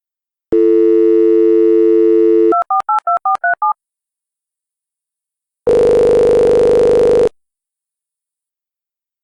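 Telephone dial tone for about two seconds, then about six quick touch-tone keypad beeps as a number is dialled. After a pause comes one buzzy ringing tone of about a second and a half: the call ringing out.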